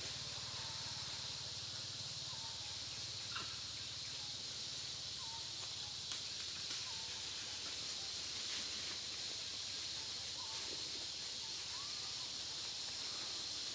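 Forest ambience: a steady high-pitched hiss with a few faint, short chirps scattered through.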